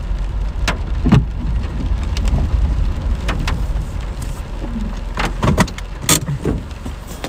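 Heard from inside a car: a steady low engine and road rumble as the car moves and pulls up, with scattered sharp taps and knocks, the loudest about a second in and around five and a half to six seconds in.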